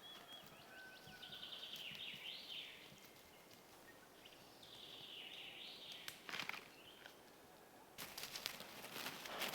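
Small songbirds singing faintly in short chirping and trilling phrases, with a quick trill a second or two in. Crackling and rustling near the end.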